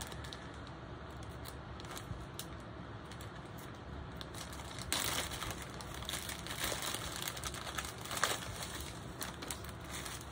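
Small plastic zip-lock bags crinkling and rustling as they are handled and opened. It is quiet at first, with scattered soft crackles becoming busier from about halfway through.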